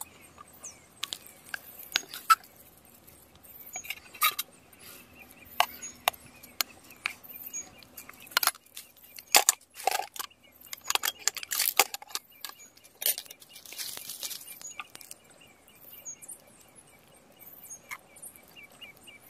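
Irregular clinks and knocks of dishes and utensils being handled at a meal, with faint repeated bird chirps behind them.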